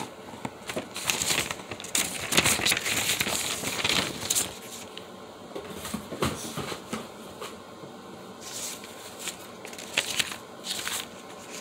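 Rustling and crinkling of packaging as items are rummaged through by hand, with a few light clicks and knocks. The rustling is busiest in the first half and picks up again near the end.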